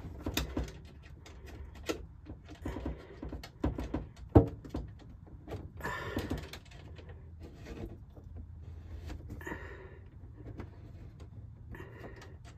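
Scattered knocks, clicks and rustling of hands working a kitchen faucet's mounting hardware and supply hoses from under the sink, with one sharp knock about four seconds in.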